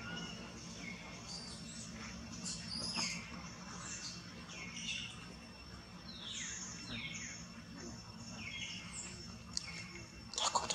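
Busy high-pitched chirping: many short calls, several sliding down in pitch, repeating throughout. A brief sharp knock just before the end.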